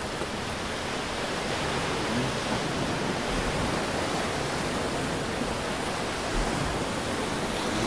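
Steady rush of sea surf washing on a rocky shore.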